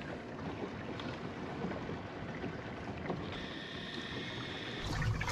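Steady wind and water noise around a small boat. About three seconds in, a faint high electric whine runs for a second or two as the bow-mounted trolling motor deploys.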